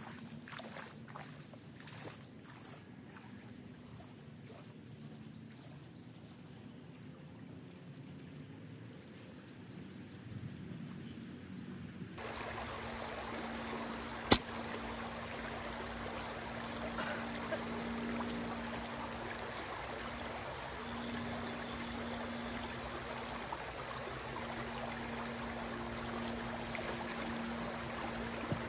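Shallow stream water running and rippling, faint at first and then fuller and louder from about twelve seconds in. A single sharp click comes a couple of seconds after that.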